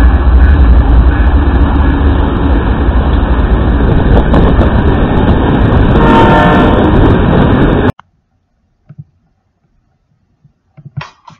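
Freight train passing close by: BNSF diesel locomotives rumbling and the wheels of covered hopper cars running on the rails. About eight seconds in the sound cuts off abruptly, leaving near silence with a few faint knocks.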